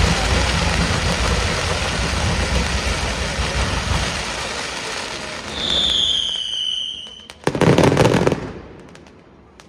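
Fireworks going off in a dense, continuous crackle that thins out over the first half. A high whistle falling in pitch follows, then a loud crackling burst about three-quarters of the way through, leaving only scattered faint pops.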